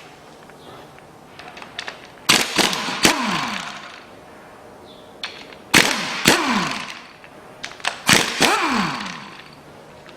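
Impact wrench undoing engine bolts in three short bursts. Each burst starts with a few sharp hammering blows, and the motor whine falls away after each trigger release.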